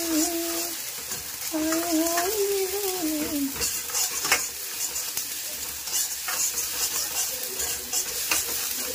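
Onion, garlic and spice masala sizzling as it is fried and stirred in a pan, with the spatula knocking against the pan several times in the second half.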